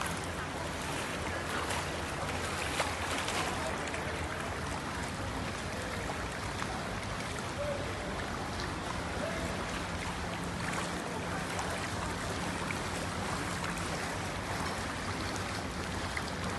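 Floodwater washing and lapping across a flooded square, heard as a steady rush with small splashes. A faint low hum joins about nine seconds in and fades a few seconds later.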